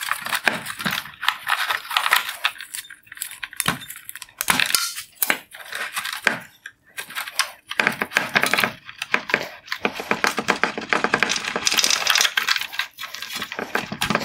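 Circuit boards and wire-harness plug connectors being unclipped and pulled out of a plastic LED headlight housing: a busy run of plastic clicks, rattles and scraping with brief pauses.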